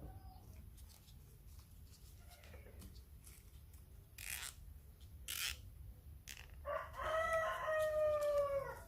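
A rooster crowing: one long, slightly falling call near the end. Two brief scratchy rasps come a second or two before it.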